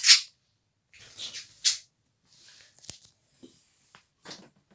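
A few brief scratchy rustles close to the microphone, the loudest between one and two seconds in, with a sharp click just before three seconds.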